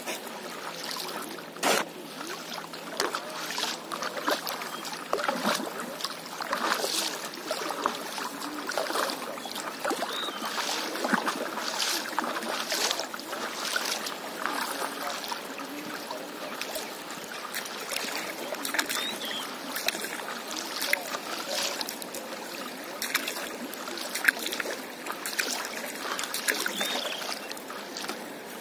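Stand-up paddleboard paddling on calm seawater: irregular paddle strokes splashing and dripping, with water trickling and lapping at the board. A sharp knock about two seconds in and another near the end.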